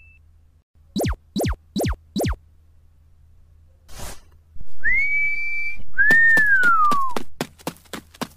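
A string of cartoon sound effects: four quick zaps that each drop sharply in pitch, a brief swish, then a held whistle and a second whistle sliding downward. A rapid run of taps, about six a second, follows near the end.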